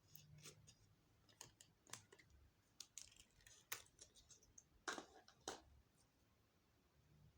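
Clear slime being pressed and stretched by hand, giving faint, irregular clicks and small pops of trapped air, with the two loudest pops about five seconds in.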